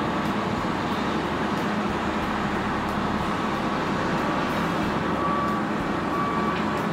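Heavy diesel machinery running steadily under load, with a couple of short high squeals about five and six seconds in.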